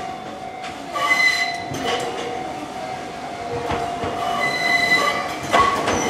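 Enoden 1500-series electric train running into the station, its wheels squealing in high tones about a second in and again near the end, over a steady tone that stops about four seconds in.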